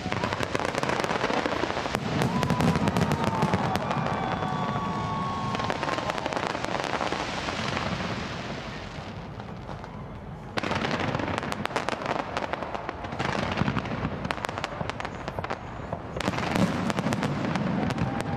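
Fireworks display: dense crackling and popping from many shells and crackle effects, with a few faint whistles over it. It eases off about halfway through, then picks up again abruptly.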